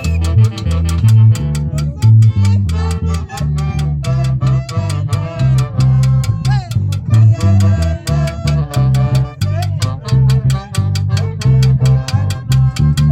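Band music: an instrumental passage with guitar and a pulsing bass line over a steady percussive beat.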